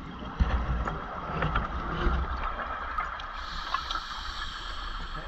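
A scuba diver breathing underwater. Exhaled bubbles gurgle for about the first two seconds, then an in-breath hisses in the second half.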